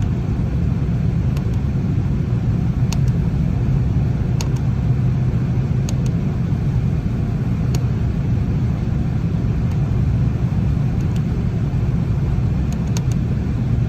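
Steady low mechanical drone of a running HVAC unit, with a few light clicks at irregular spacing.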